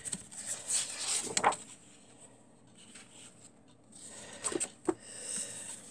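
Sheets of craft paper and card rustling and sliding as they are handled and turned over, in two spells: one in the first second and a half, another from about four seconds in with a couple of light taps.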